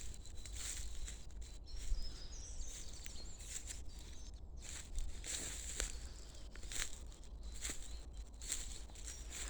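Small songbirds chirping in short high notes over a steady low rumble.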